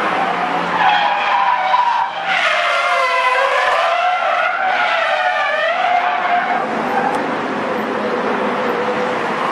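Car drifting: the engine revs rise and fall at high rpm over screeching tyres.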